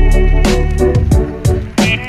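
Background music with a steady beat: deep bass drum hits that slide down in pitch, sharp snare-like strokes and sustained notes.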